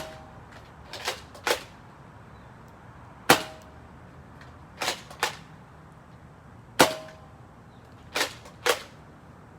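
Nerf Rival blaster firing foam rounds: eight sharp snaps, several in quick pairs about half a second apart, the loudest with a brief ring.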